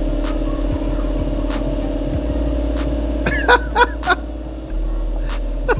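Background music: sustained synth-like tones over a low bass, with a sharp percussive hit about every second and a quarter and a short gliding melodic figure a little past halfway.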